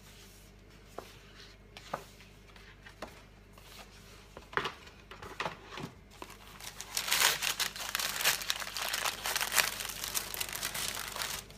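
Paper packaging crinkling and rustling as it is handled and pulled aside to unwrap items in a box: a few scattered light rustles and taps at first, then from about halfway on, dense, continuous crumpling.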